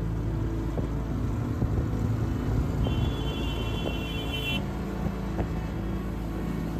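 Motorcycle engine running steadily under way, heard from the rider's own bike, with a high steady whistle-like tone for about a second and a half near the middle.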